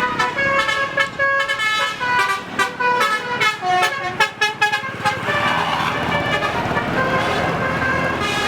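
Bus's multi-tone 'telolet' musical air horn (basuri type) playing a quick tune of short notes for about five seconds, then giving way to steady vehicle noise.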